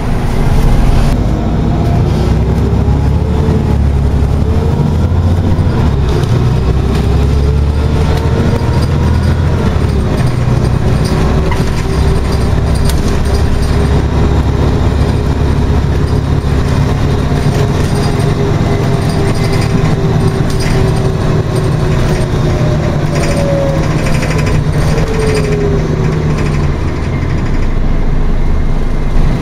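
Inside a Scania OmniCity articulated bus under way: the engine drone and drivetrain whine rise and fall in pitch as the bus accelerates and changes gear, over a heavy road rumble with small cabin rattles.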